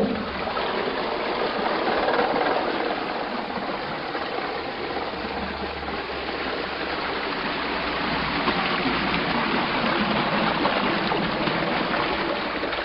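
Water pouring and rushing steadily, as through the opened gates of a canal lock, with a short knock at the very start.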